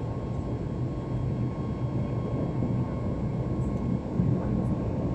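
Steady jet engine and airflow noise heard inside an airliner cabin as the plane climbs after takeoff.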